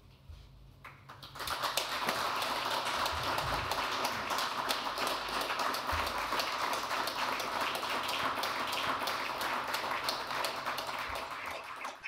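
A small audience of a couple of dozen people applauding, a steady patter of clapping hands that starts about a second in and thins out near the end.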